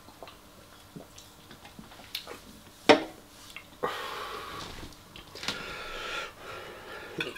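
A drink can set down sharply on a hard table about three seconds in, followed by two long breathy exhales.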